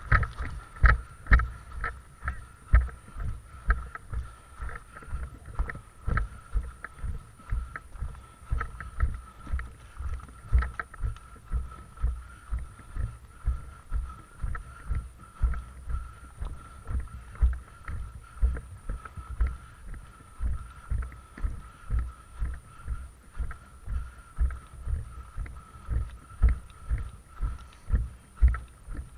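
Footsteps of a person walking, heard as regular low thuds about twice a second, over a faint steady high whine.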